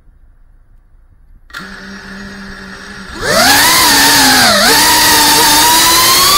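FPV quadcopter's brushless motors: a steady low idle hum starts about a second and a half in, then about three seconds in it jumps to a loud whine as the drone lifts off, its pitch swooping up and down with the throttle.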